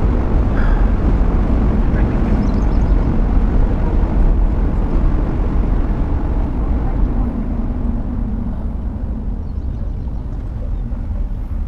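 Steady road and tyre rumble with engine noise inside a moving car's cabin, easing slightly near the end.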